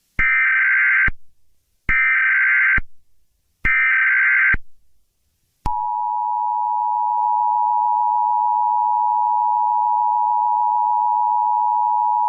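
Emergency Alert System tones: three short, harsh, buzzing data bursts of the SAME header, each under a second with short gaps between them. About five and a half seconds in, the steady two-tone EAS attention signal starts and holds.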